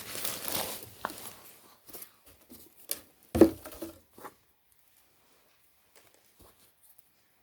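Rustling handling of fidget toys, then a few light knocks and one louder knock about three and a half seconds in.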